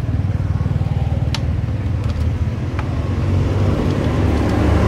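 Low, steady rumble of a motor vehicle's engine running, growing a little louder toward the end, with two sharp clicks in the middle.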